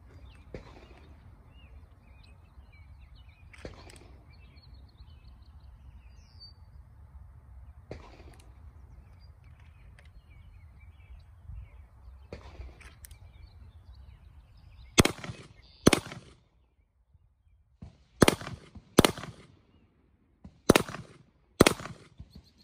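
A handgun fired six times, in three quick pairs of shots less than a second apart, over the last third. Before the shots, birds chirp faintly over a low steady rumble, with a few faint pops.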